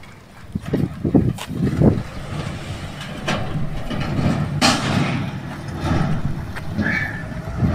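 Construction-site ambience: heavy vehicles and machinery running at a distance, an uneven low rumble with a few sharp knocks.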